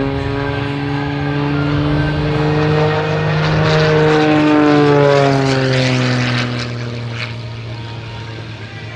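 Edge 540 aerobatic plane's six-cylinder piston engine and propeller droning in flight. The pitch climbs to its loudest about four to five seconds in, then drops and fades.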